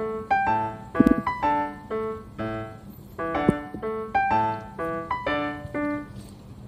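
Background piano music: a light tune of plucked-sounding notes at an even pace. Two short knocks cut through it, about a second in and again midway.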